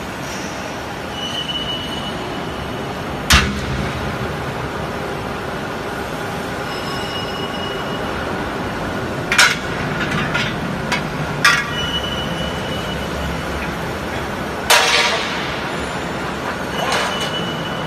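Unistrut channel roll forming line running steadily, its flying cut-off carriage travelling alongside the formed steel channel. A high thin whine comes and goes, and sharp metal clanks ring out several times, four of them loud, as the channel is cut and handled.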